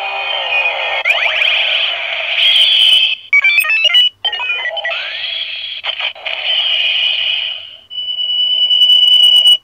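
CSM Decadriver (Kamen Rider Decade collector belt) playing electronic sound effects through its small speaker: sweeping synth tones, a quick run of stepped beeps about three and a half seconds in, and a held high tone near the end.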